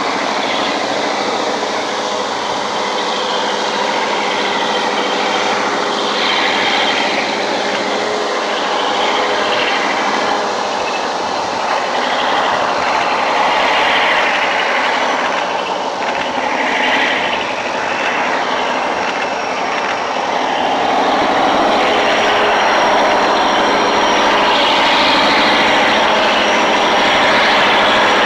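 Diesel-electric locomotive hauling a loaded grain train, its engine drone steady at first and growing louder over the last few seconds as it approaches, over a constant hiss of background noise.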